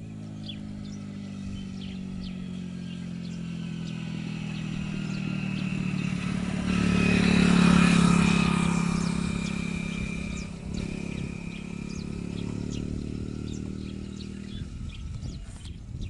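A motor vehicle engine passing by: its hum grows louder, peaks about halfway through, then fades and stops shortly before the end. Faint short bird chirps come through alongside.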